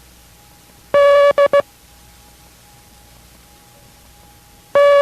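Morse code letter D sent as a keyed steady tone: one long dash followed by two short dots (dah-dit-dit) about a second in, and the long dash of the next D starting near the end.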